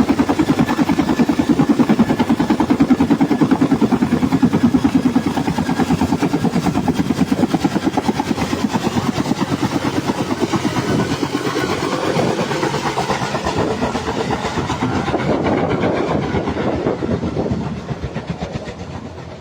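Helicopter rotor chopping with a rapid, steady beat, growing fainter near the end.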